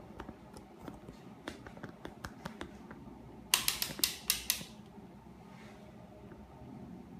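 A quick run of about six sharp clicks from a hand working the controls of a digital multimeter, with fainter scattered ticks before it.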